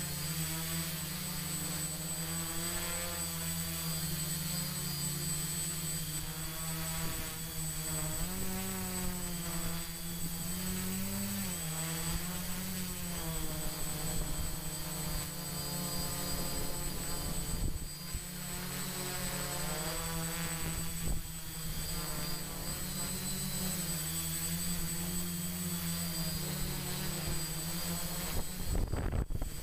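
Multirotor drone's electric motors and propellers whirring up close from the onboard camera, the pitch wavering up and down as the throttle changes in flight.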